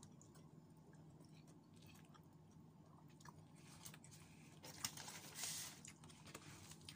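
A person chewing food close to the microphone, faint small clicks of eating, with a brief louder rustling noise about five seconds in.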